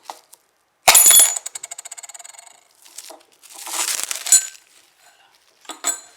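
Foley for breaking glass: a metal key punched through cellophane stretched over a drinking glass drops in with a sharp clink, then rattles and rings against the glass, the rattle quickening as it dies away over about two seconds. A scraping, rustling burst follows about three and a half seconds in, then a few light clicks near the end.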